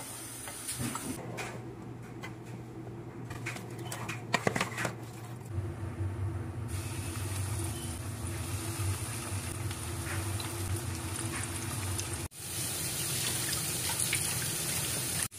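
A few taps and scrapes as fish fillets are dredged in cornstarch. Then steady sizzling of hot oil in a skillet as white perch fillets go into the pan. About twelve seconds in, a kitchen tap runs water into a stainless sink.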